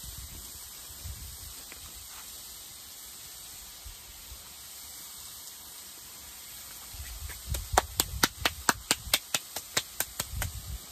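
A steady low hiss, then near the end about three seconds of quick, sharp claps, roughly five a second, as hands are clapped and brushed together to shake off crumbled cauliflower.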